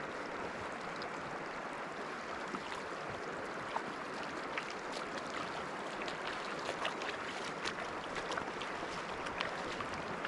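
Bow River water rushing past in a steady, even hiss, with a few faint ticks.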